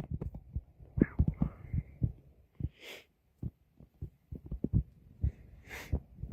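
Footsteps and scuffs: irregular soft low thuds, with two short hissing noises, about three and six seconds in.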